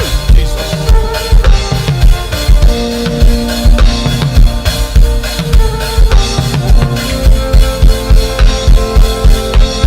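Music with a drum kit playing a steady beat, bass drum and snare hits over held tones.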